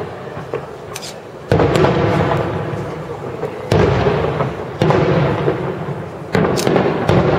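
Aerial fireworks bursting overhead: four sudden bangs about a second or two apart, each followed by a long crackling tail that slowly fades.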